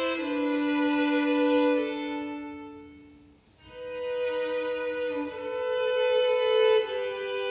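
Violin playing slow, sustained notes, often two at a time in double stops. The phrase dies away about three seconds in, and a new phrase begins about half a second later.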